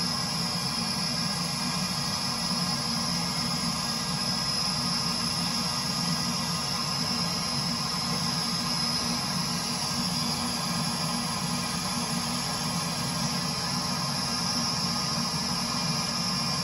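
Steady machine hum with a hiss and a thin high whine above it, unchanging throughout.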